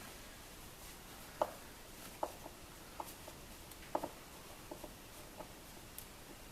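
Light clicks and taps, about six spread a second or so apart, from a screwdriver working screws out of the plastic glove box surround.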